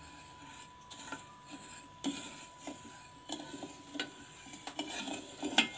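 A spoon stirring sugar syrup in a saucepan, scraping and clicking against the pot. The stirring starts about two seconds in.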